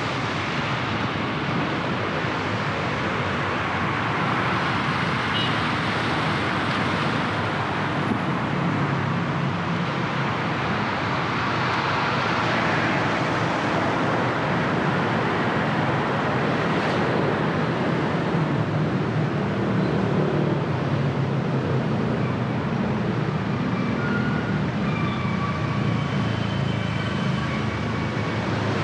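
Road traffic on a wet city street: a steady hiss of tyres on rain-soaked road with engines running underneath. A few faint, short, thin tones come and go near the end.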